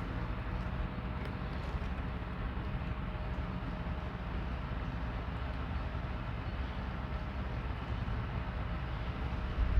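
Steady low background rumble with a faint constant hum; the small handling of parts is barely heard above it.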